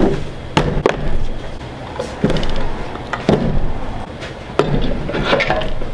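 Handling noise at a workbench: half a dozen scattered knocks and clunks as boxes and an LED light bar are set down and moved about.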